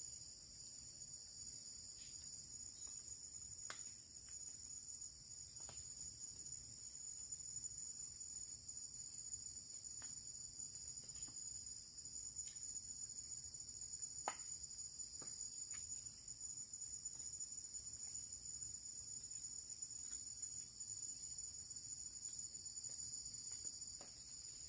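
Forest insects chirring in a steady high-pitched drone, with a few faint scattered clicks and taps.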